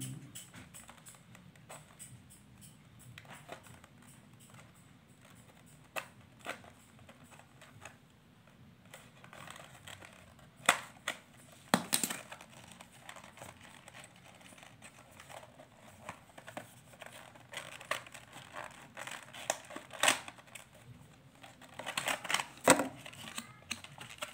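Cardboard box and clear plastic packaging of a portable hard drive being handled and opened by hand: scattered clicks, scrapes and crinkles, sparse at first and busier from about halfway, with a flurry of plastic crinkling near the end.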